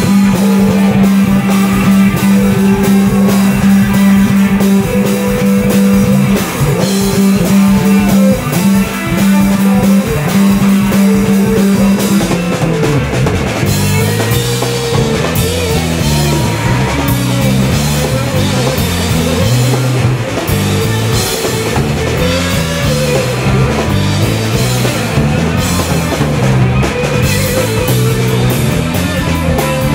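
Live rock band playing an instrumental passage at full volume: electric guitars, bass and drums. A low note is held and repeated for about the first twelve seconds, then the low end breaks into a busier moving line.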